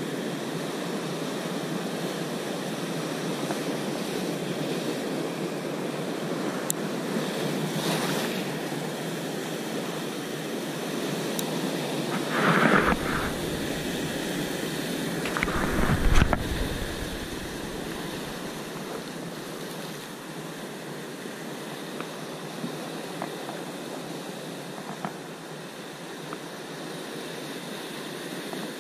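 Heavy sea surf breaking against rocks, a steady wash of churning water with two louder surges of crashing waves about halfway through.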